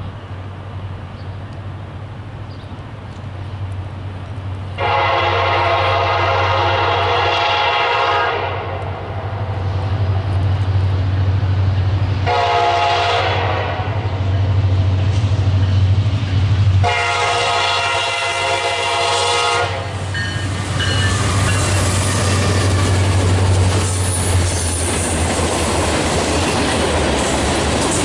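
A locomotive's multi-note air horn sounds three times, a long blast, a short one and a long one, over the steady low drone of the approaching engine. About twenty seconds in, the train passes close by, with the clatter of wheels on rail joints.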